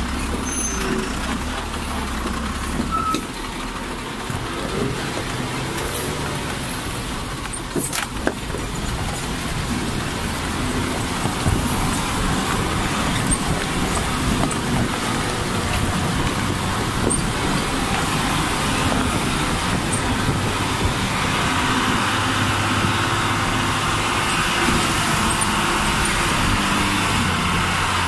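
A truck driving on a rough gravel road: the engine runs steadily under the noise of the tyres rolling over stones, with a single sharp knock about eight seconds in. Over the last several seconds the engine grows louder.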